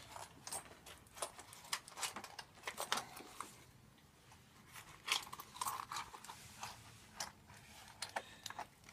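Irregular clicks, rustles and small clatters of hands rummaging among small objects, looking for a coin.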